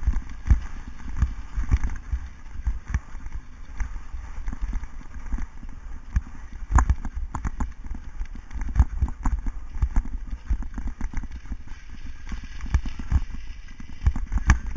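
A cyclocross bike jolting over a bumpy grass course, with an irregular run of rattles and knocks from the bike and camera mount and a low wind rumble on the microphone.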